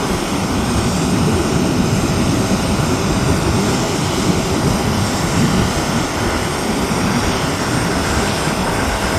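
Embraer 190 jet airliner's twin turbofan engines running steadily, a loud rumble with a faint high whine on top.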